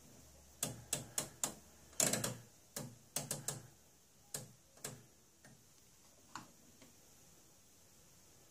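Detented rotary knobs on a Tektronix 2225 oscilloscope being clicked through their positions: a quick, irregular run of about a dozen sharp clicks, some in close pairs and triplets, then two single clicks a few seconds later.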